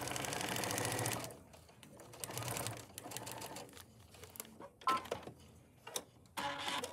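Baby Lock Cascade computerized sewing machine stitching at a fast steady rate, then stopping abruptly about a second in. A few light clicks follow as the work is handled.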